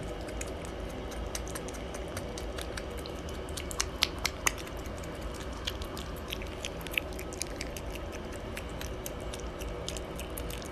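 A piglet chewing and smacking food off a plastic spoon. The sharp mouth clicks come in a run about four seconds in and scattered after, over a steady low hum.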